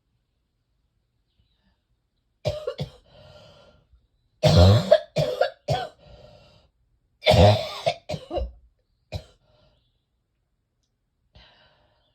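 A person coughing in three fits, of about two, three and four coughs, drawing breath between the fits, then a faint cough near the end. It is a chesty cough from heavy chest congestion that has not yet broken up.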